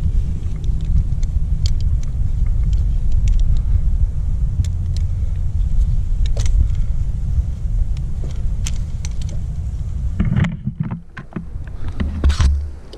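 Steady low wind rumble on a helmet-mounted microphone, with scattered light metallic clinks of carabiners, pulleys and other climbing hardware being handled. Near the end the rumble drops away for about a second.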